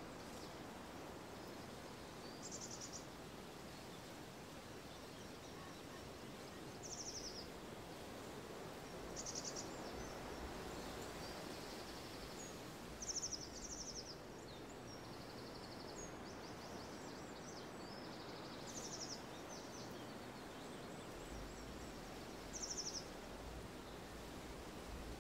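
Quiet outdoor ambience: a steady, faint hiss of background noise, with small birds singing short, rapid trilled phrases every few seconds.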